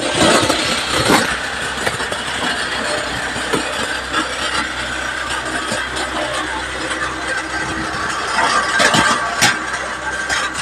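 Wood chipper running steadily, with a few sharp knocks, the loudest about a second in and twice around nine seconds in.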